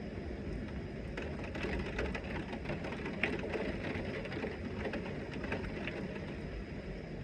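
Heavy rain falling: a steady rush with a dense spatter of sharp drop ticks on a hard surface, thickest through the middle and thinning near the end.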